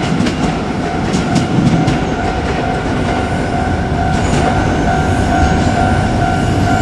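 JR Kyushu 817 series electric train rolling past a level crossing: a steady rumble, with wheels clacking over rail joints, the clacks clustered in the first two seconds and again around four seconds in. Through it runs the crossing's electronic warning bell, a steady pulsing two-tone ring.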